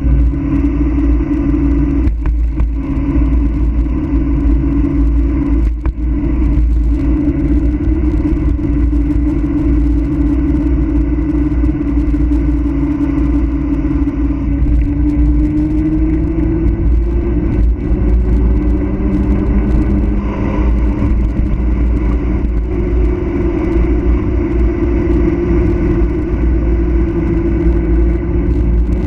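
Steady road noise of a fast mountain-road descent: a heavy rumble of wind and tyres, with a droning hum that slowly rises in pitch about halfway through.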